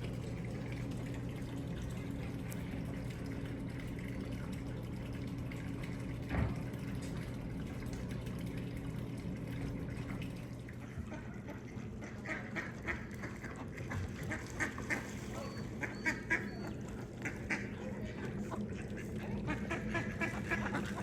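Ducks quacking in short repeated calls, starting about halfway through and going on to the end, over a steady low hum. A single sharp knock sounds about six seconds in.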